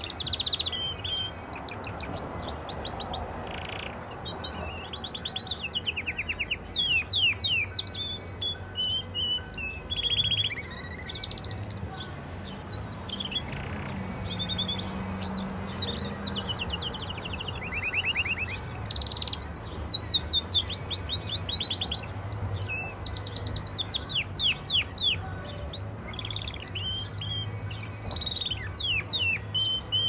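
Domestic canary singing: long, nearly unbroken song of rapid rolling trills and quick chirp runs, high-pitched, over a steady low hum.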